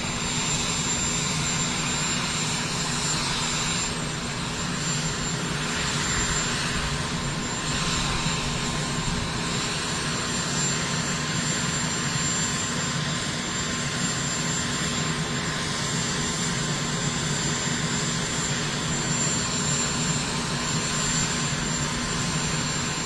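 Steady engine-like drone with a constant high-pitched whine over it, unchanging in level.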